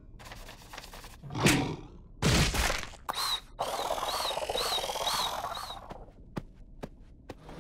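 Cartoon sound effects with no music: a quick whoosh about a second and a half in, then a longer rushing noise with a repeating high chirp through the middle, and a few light taps near the end.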